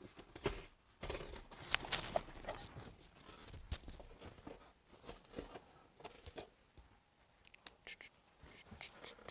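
Paper towel being torn and crumpled: a run of irregular rustling and tearing sounds, loudest about two seconds in, with a sharp crackle near four seconds and more rustling near the end.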